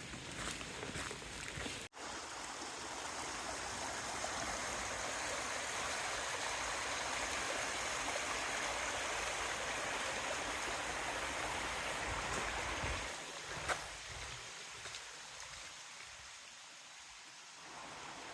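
A stream's flowing water rushing steadily, louder a couple of seconds in and fading away after about thirteen seconds.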